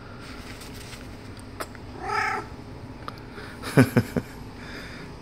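Domestic cat giving one short meow about two seconds in, the kind of odd noise his owner is asking about. Just before the four-second mark come three quick thumps close together, the loudest sounds here.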